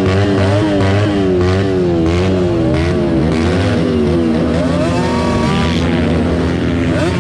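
Several small gasoline pit-bike engines running together, throttles blipped so their pitch sweeps up and down unevenly over a steady low drone, with a sharper rev near the end.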